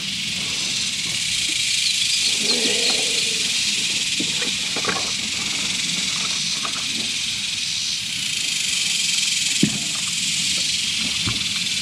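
A steady, high-pitched insect chorus drones from the shoreline trees, with a few short knocks and clatters of gear being rummaged through in a boat hatch.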